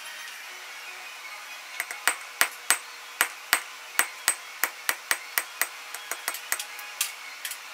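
Blacksmith's hand hammer striking a red-hot steel bar on an anvil: a steady run of blows, about three a second, each with a short metallic ring, starting about two seconds in and growing lighter toward the end.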